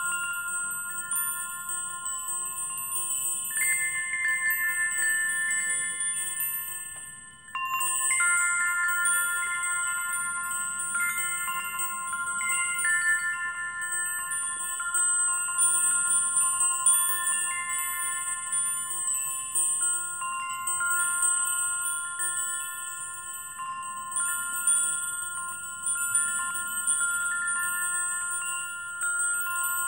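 Chimes ringing in overlapping, long-held bell-like tones, the notes changing every few seconds. The sound briefly fades about seven seconds in, and a fresh strike follows.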